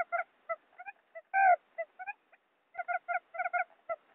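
Wild quail calling, played as a lure (pikat) recording: quick runs of short, repeated notes, one louder, drawn-out note about a second and a half in, then after a brief pause another fast run of notes.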